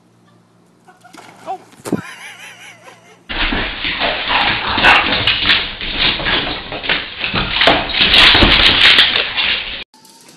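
A dog vocalising, with a loud, rough noisy stretch of about six seconds full of sharp clicks that starts and cuts off abruptly.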